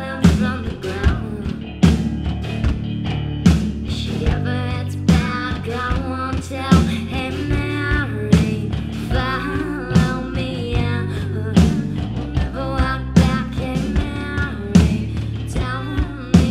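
Live rock music: a singing voice over bass guitar and a drum kit keeping a steady beat.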